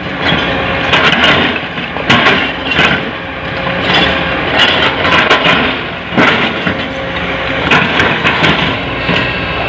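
Rock fill crashing and clattering into a dump truck's steel bed in irregular bursts, with heavy diesel machinery running underneath.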